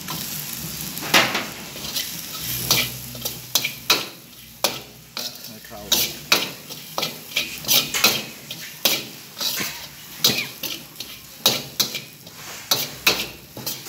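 Metal wok spatula stirring and scraping a dry mix around a black iron wok, with sharp clanks about two a second over a light sizzle.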